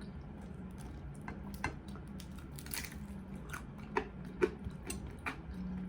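Close-up chewing and biting with irregular crisp crunches and clicks, the sound of crunchy fried-chicken breading being eaten. A faint steady low hum sits underneath.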